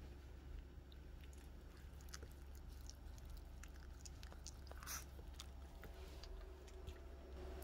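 Faint wet clicking and smacking of a small dog licking a person's face, with a louder smack about five seconds in.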